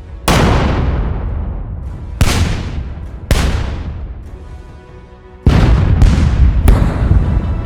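Howitzers firing: six heavy shots, each a sharp blast followed by a long rumbling decay. The first three are spaced about a second or two apart, and the last three come close together in the second half.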